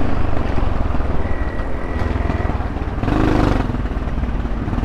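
Motorcycle running on the move, with heavy wind buffeting on the microphone; the sound swells briefly about three seconds in.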